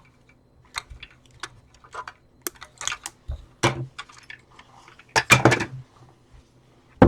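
Clicks and light plastic clattering as the handheld vacuum's fan motor is worked free and cut off, with a louder knock about three and a half seconds in, a longer clatter around five and a half seconds, and a sharp click near the end.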